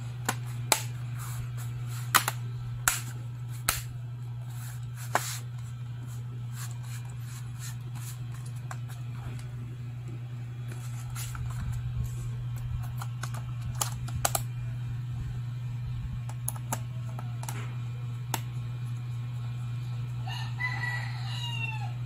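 Sharp plastic clicks and snaps as the laptop's bottom access cover is pressed back into place and fastened, over a steady low hum. Near the end a short crowing call, like a rooster's, sounds in the background.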